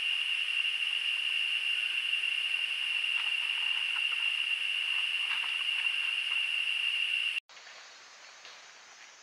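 Steady high-pitched drone of a rainforest insect chorus, with faint scratching and rustling as a northern tamandua clambers over a fallen log. Near the end it cuts off abruptly to a much quieter forest background.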